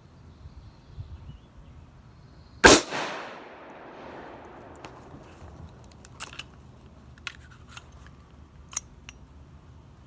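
A single shot from a Smith & Wesson Model 58 .41 Remington Magnum revolver about three seconds in, its report ringing off for about a second. Later, a few light metallic clicks as the revolver's cylinder is opened.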